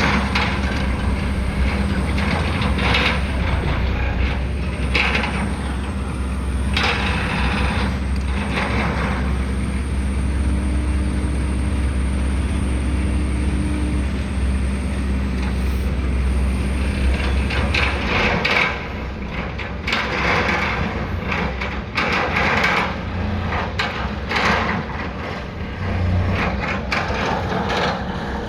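Heavy diesel construction machinery running, with a steady low engine drone and irregular clanks and scrapes. The drone cuts off about two-thirds of the way through, while the knocking and scraping go on.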